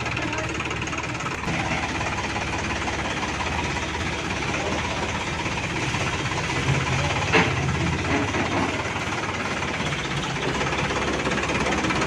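Sonalika DI-47 RX tractor's diesel engine running steadily, with one sharp click about seven seconds in.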